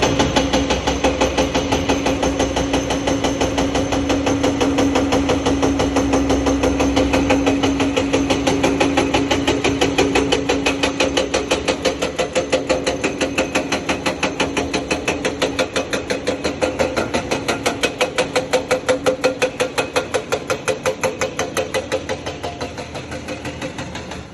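Hydraulic rock breaker on an excavator hammering basalt: fast, evenly spaced blows, several a second, over the excavator's steady diesel engine. The blows weaken near the end and stop.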